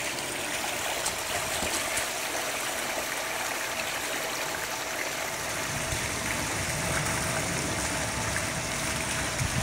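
Steady rush of water from a pool's wall cascade, with some lower sloshing from a swimmer in the second half.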